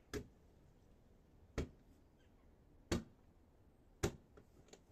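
Four sharp knocks, a little over a second apart, with a few fainter clicks near the end.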